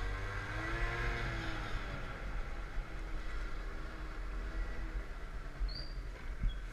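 Peugeot Vivacity 50cc scooter engine running at low speed. Its note rises briefly in the first couple of seconds, then drops and settles lower as the scooter slows. A steady low wind rumble on the microphone runs underneath.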